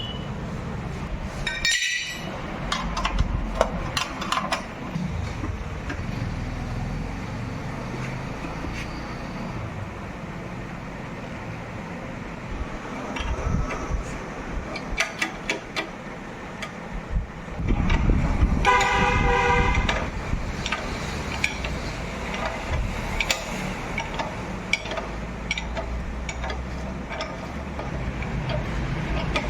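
Scattered metallic clinks and knocks of tools and parts while a motorcycle is being dismantled, over a low rumble. A vehicle horn sounds once for about two seconds, a little past the middle.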